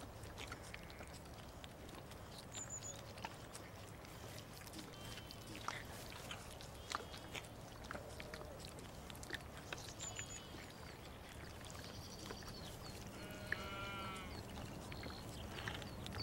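A lamb bleating, with one clear wavering bleat about three-quarters of the way through, over faint background with scattered small clicks and a few brief, fainter high calls.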